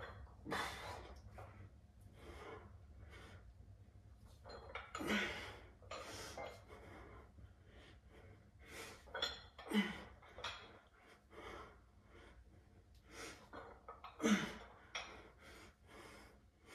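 A man breathing hard from the effort of bicep curls: quick, repeated breaths, with four louder, forceful exhales spaced about four to five seconds apart.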